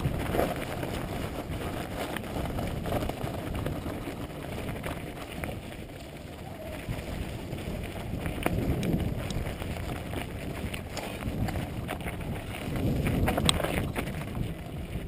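Mountain bike rolling down a gravelly dirt trail: a steady low wind rumble on the microphone mixed with tyre noise on the dirt and scattered small rattles and clicks from the bike, with a sharper click about thirteen seconds in.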